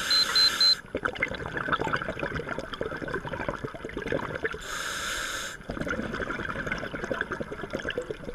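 Scuba diver's regulator underwater: a loud burst of exhaled bubbles at the start and again about five seconds in, with steady bubbly crackling in between.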